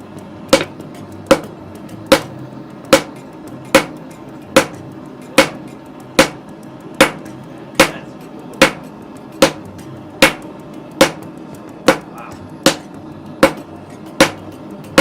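Hand hammer striking metal at a steady pace, about one blow every 0.8 seconds, each blow with a short metallic ring, as in forging at an anvil.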